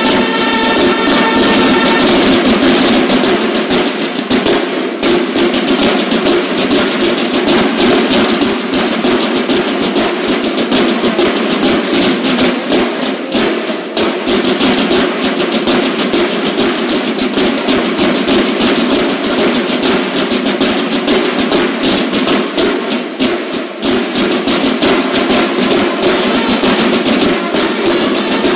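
Banda de guerra drum line playing fast, dense snare drumming, with the bugles' held chord cutting off about two seconds in.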